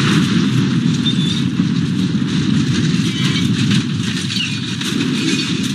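Film sound effect of a huge fuel explosion and fireball engulfing a jet airliner: a loud, continuous, dense rumble with no single bang, easing slightly toward the end.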